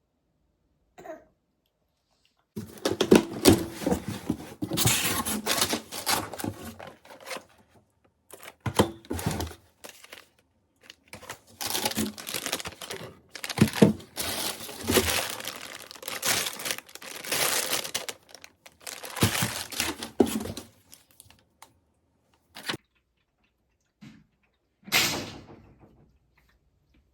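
Crinkling, rustling and tearing sounds in repeated bursts with short pauses, like plastic or paper being handled, with a few sharp knocks among them.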